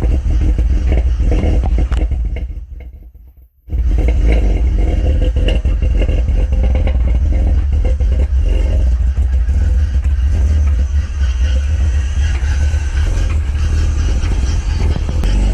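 Cammed 2004 BMW 330Ci's 3.0-litre inline-six, with 264/248 aftermarket cams and headers, running with a heavy, choppy lope from the aggressive cams. The sound fades out and cuts back in abruptly about four seconds in.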